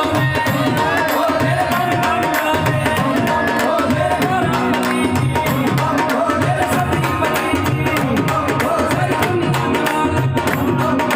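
Live devotional stage music: a steady, fast hand-drum rhythm under held instrumental notes, with a man singing into a microphone.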